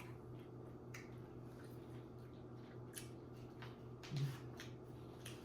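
Quiet room with a steady low hum and a few faint clicks from eating. A short, low voiced hum about four seconds in falls slightly in pitch.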